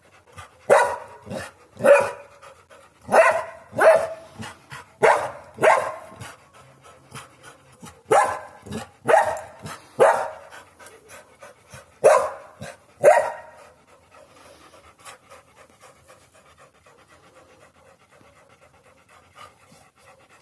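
Brittany Spaniel barking about once a second, around a dozen barks, which stop about two-thirds of the way through. After that a German Shepherd's soft panting is heard.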